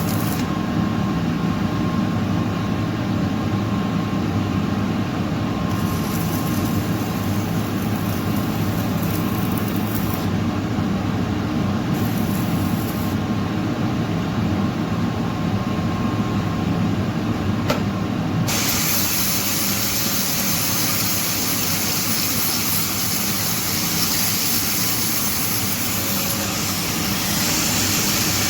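Arc welding noise: a steady low hum with hiss. About eighteen seconds in, a louder, harsher hiss starts abruptly.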